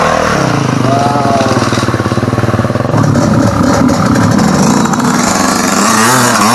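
Enduro dirt bike engines revving hard as riders climb a trail one after another, the engine pitch rising and falling with the throttle.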